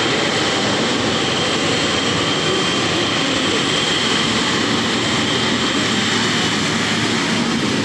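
Jet airliner's engines running at low thrust as it taxis: a steady rushing noise with a high whine over it.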